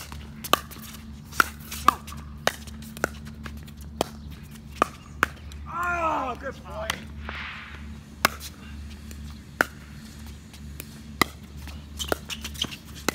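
Pickleball rally: sharp, hollow pops of solid paddles hitting the plastic ball and the ball bouncing on the hard court, coming irregularly a few tenths of a second to a second apart. The pops pause for a couple of seconds about six seconds in, when a player calls out briefly. A steady low hum runs underneath.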